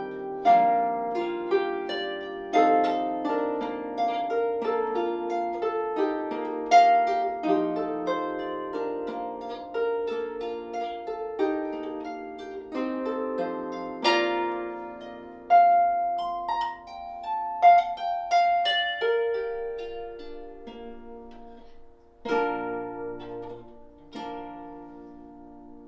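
Solo lever harp played by hand: a plucked melody over lower accompanying notes, each note ringing and dying away. Near the end, after a short pause, a chord with a low bass note is struck and left to fade.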